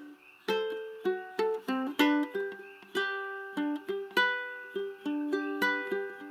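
Ukulele playing a melody note by note, each plucked note ringing and fading, starting about half a second in.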